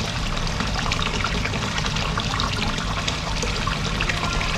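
Water trickling and splashing steadily, the running water of a koi pond.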